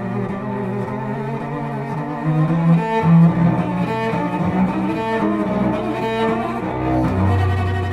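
Cello playing, bowed: low held notes, then a melody moving from note to note about once a second, with a deep low note sounding near the end.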